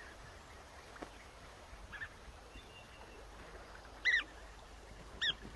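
European bee-eaters calling: a few short calls that rise and fall in pitch, faint at first, with the two loudest about four seconds in and just before the end.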